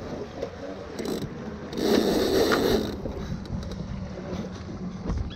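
Magic 25 sailboat under way in light wind: water along the hull and wind on the microphone, with a louder rustling burst about two seconds in that lasts about a second.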